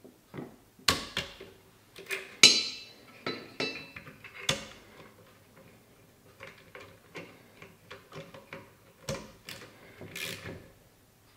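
Sharp metal clinks and scrapes of a T-handle driver working the action screws of a Tikka T3x action in an MDT XRS chassis, one clink ringing briefly about two and a half seconds in. A run of softer small clicks follows, then a few more knocks near the end.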